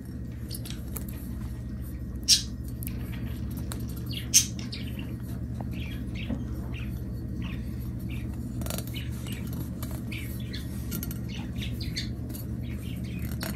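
Fingers rubbing and pressing a vinyl decal down onto a chrome-moly BMX fork leg: short squeaks and scratchy rubs, with two sharper squeaks about two and four seconds in, over a steady low hum.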